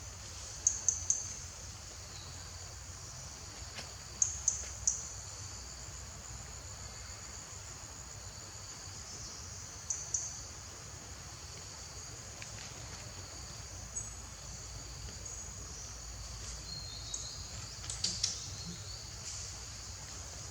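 Steady high-pitched insect chorus, with short sharp high chirps coming in quick groups of about three, four times.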